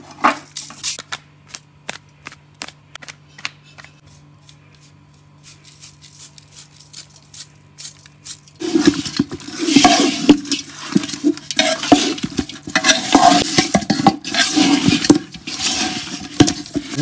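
Sharp, irregular clicks and taps as salt and spices are added to raw meat shanks in a steel pot, over a faint low hum. About halfway through, this gives way to loud, continuous squelching and scraping as a hand mixes the spiced raw meat against the metal pot.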